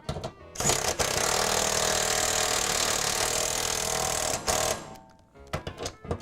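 Power drill running steadily for about four seconds as it drives a screw into a steel garage door's stile, with short clicks of handling before and after.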